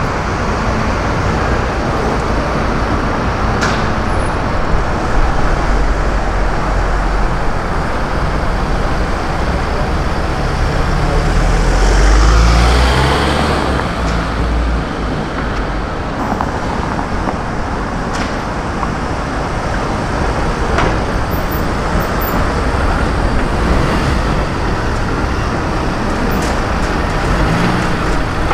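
Street traffic: cars driving past at low speed, with one vehicle passing close and loud, its rumble swelling and fading about twelve seconds in.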